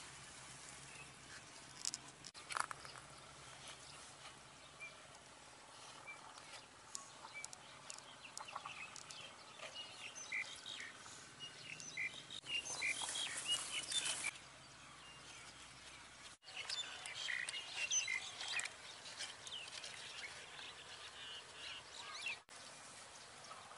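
A knife cutting into a whole watermelon and a spoon scooping out the soft red flesh: light wet crunching and scraping, loudest in two short spells past the middle, with scattered small clicks.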